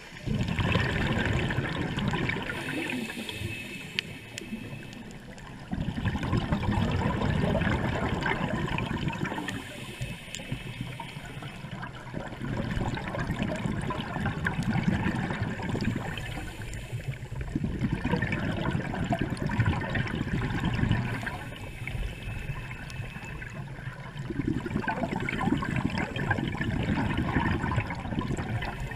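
Scuba regulator breathing heard underwater: a short hiss of inhaled air, then a few seconds of rumbling exhaled bubbles, repeating about every five to six seconds.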